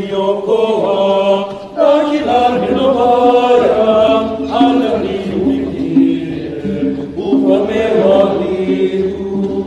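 Church choir singing, several voices together in a slow sung line with held lower notes.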